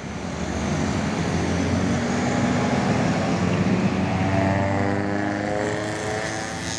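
Heavy road traffic at a junction: the diesel engines of a truck and tour buses running as they drive through, a steady engine drone with tyre noise that grows louder about a second in.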